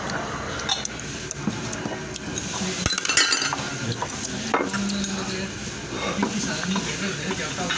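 Chopsticks clicking against bowls and dishes clinking while someone eats, with a cluster of sharp clinks about three seconds in.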